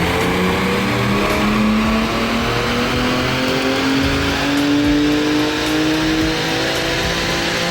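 Car engine under load on a dyno, climbing steadily in revs over several seconds in a long pull, its pitch rising with a couple of small steps.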